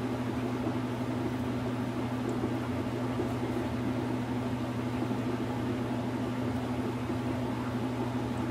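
A steady low mechanical hum over an even hiss, the kind a fan or ventilation unit makes.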